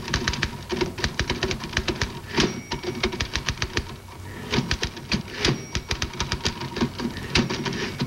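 Manual typewriter keys clattering rapidly, several keystrokes a second, in two runs with a short pause about four seconds in.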